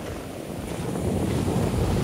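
Shore-break ocean waves breaking and washing up the beach, with wind buffeting the microphone. The surf grows louder from about half a second in.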